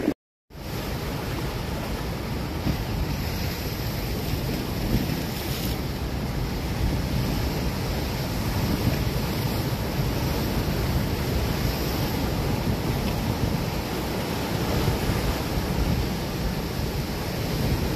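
Ocean surf breaking and washing over dark rocks in a steady, continuous roar, with wind buffeting the microphone. The sound drops out for about half a second at the very start.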